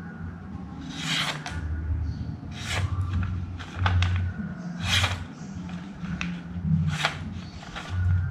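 Short, dry rasping strokes of abrasive paper worked by hand against a steel knife blade, about ten at uneven intervals, tidying up the heel of the edge.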